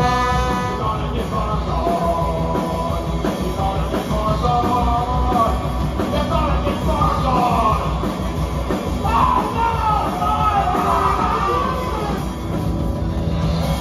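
Live punk rock band playing, with a singer yelling over the band.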